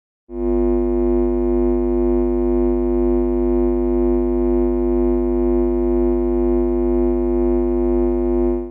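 Amplifier background noise: a steady electrical hum-buzz with many evenly spaced overtones and a low mains-hum base, starting abruptly a moment in and holding unchanged.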